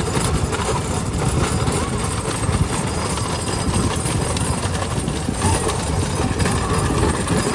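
Single-bull cart with spoked wooden wheels rolling fast on a tarmac road: a continuous rattling rumble of the wheels, mixed with the running of a motorbike riding alongside.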